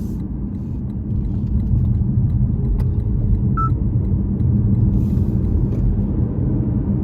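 A car being driven: a steady low rumble of engine and road noise that grows somewhat louder about a second and a half in.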